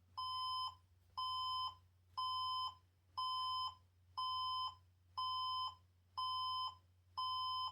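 HP Compaq desktop's internal speaker sounding a POST error beep code after power-on: a steady half-second beep repeating once a second, eight times. The machine fails to start, which the owner takes for a motherboard problem.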